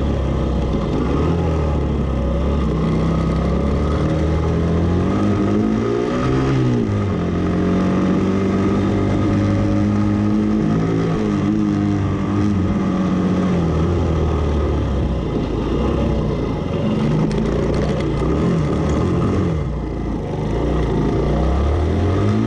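Suzuki GN125H's single-cylinder four-stroke engine running on the move, its pitch climbing and falling repeatedly as it accelerates and eases off. Near the end it drops low and quieter, then revs up again.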